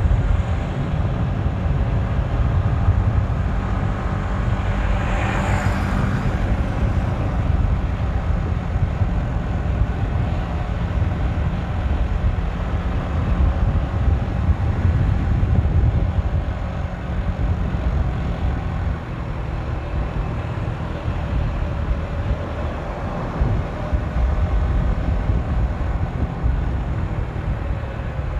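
Motorcycle riding along: wind buffeting the microphone over a steady engine note, with something briefly passing about five seconds in.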